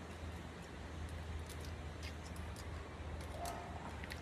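Faint, scattered light clicks of small metal hub parts and screws being handled, over a steady low hum.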